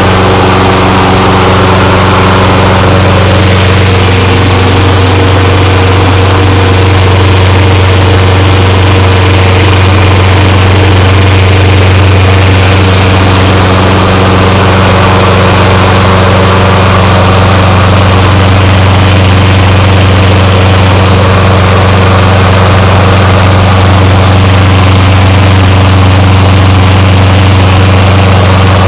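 Toro Recycler lawnmower's Briggs & Stratton single-cylinder engine running loud and steady at an even pitch, warming up just after a cold start.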